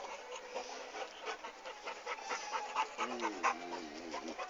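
A dog panting in short, irregular breaths, with a brief wavering vocal sound about three seconds in.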